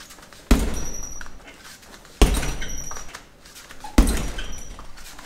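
Bare-foot roundhouse kicks (chusoku mawashi geri, landed with the ball of the foot) hitting a hanging heavy punching bag: three loud thuds about a second and a half apart. After each, the bag's hanging chains give a short jingle as it swings.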